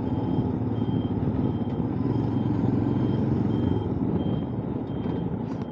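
Motorcycle engine running with road and wind rumble, while a short high beep repeats at a steady pace, about three times every two seconds.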